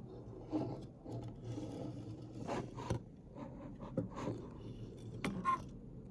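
Handling noises from a toy model airliner being moved about: irregular scraping and rubbing with a few light clicks and knocks, a pair in the middle and another pair near the end.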